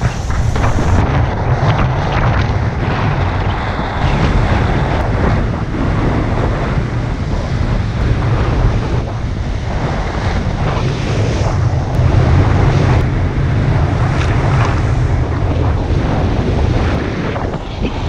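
Strong wind buffeting the microphone over the rush of waves breaking along the hull of a sailing yacht driving hard through rough seas. It is a loud, continuous roar with a heavy low rumble.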